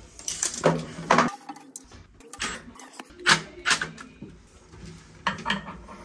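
A series of sharp clattering knocks of hard metal and plastic parts as a mini electric instant water heater is handled and fitted onto a tiled wall.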